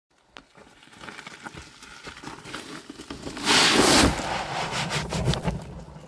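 A wheelbarrow load of gravelly soil being dumped onto a pile. First come small crunches and stones rattling as the barrow is wheeled in. A little past halfway there is a loud rush as the load pours out, then stones pattering and trickling as it settles.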